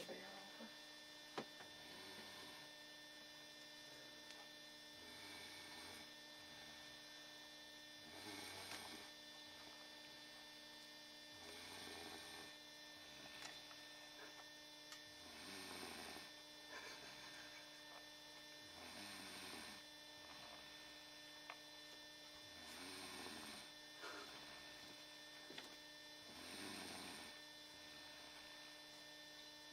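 A person snoring faintly and evenly, one breath about every three and a half seconds, over a steady electrical hum.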